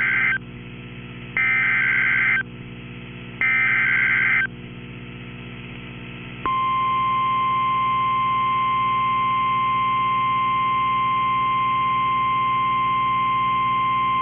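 NOAA Weather Radio emergency alert signal announcing a severe thunderstorm warning. First come the EAS/SAME digital header bursts: the tail of one, then two more, each a harsh buzzy data screech about a second long with a second's gap between them. About six and a half seconds in, the steady single-pitch 1050 Hz warning alarm tone starts and holds, over a low steady hum.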